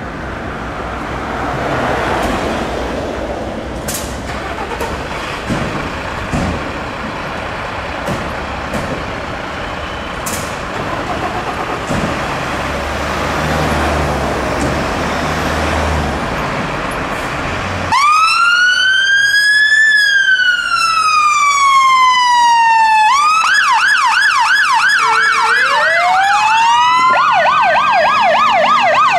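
Low rumble of idling diesel engines and road traffic. About two-thirds of the way in, a fire engine's electronic siren starts with a slow wail that rises and then falls over about five seconds, then switches to a fast yelp. A second fire engine's siren joins with a rising wail and a yelp of its own: two Mercedes-Benz Atego pumps with Whelen Alpha and Woodway Commander sirens, turning out on an emergency call.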